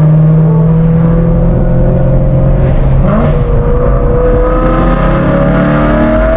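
Tuned 700 hp BMW M4's engine pulling hard under acceleration, loud, its pitch climbing slowly with a brief dip about three seconds in.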